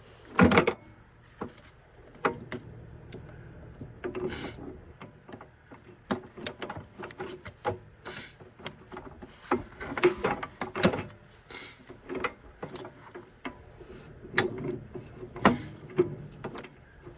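Irregular metallic knocks and clanks from snowblower attachment parts being worked into place by hand on a compact tractor. The loudest knock comes about half a second in.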